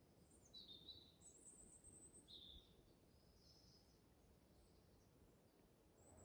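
Near silence with faint bird calls: several short, high chirps in the first four seconds over quiet woodland background.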